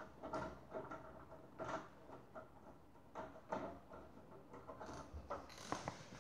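Faint, scattered clicks and light rattles of window blinds being pulled and adjusted by hand.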